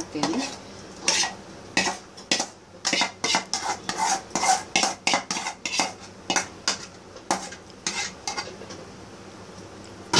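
Metal spoon scraping and clinking against steel cookware in irregular strokes, as sticky cooked ragi manni is scraped out of the pan onto a steel plate and spread. A sharper clank comes at the very end.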